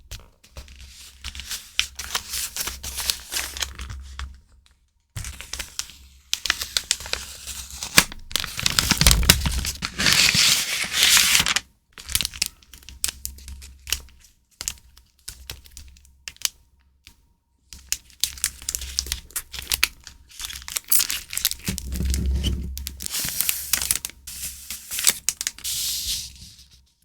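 Paper and plastic stationery packaging being handled: crinkling, rustling and tearing in several bursts, with short pauses between.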